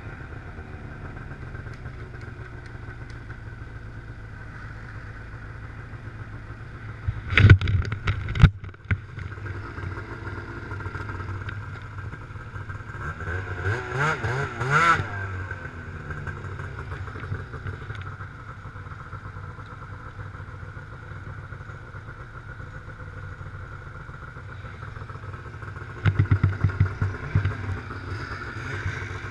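Ski-Doo snowmobile engine idling, with sharp knocks about seven to eight seconds in, a short rev rising and falling around fourteen seconds in, and a quick run of throttle blips near the end.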